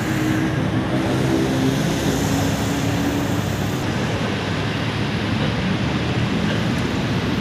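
Steady city traffic noise, with a low hum in the first few seconds.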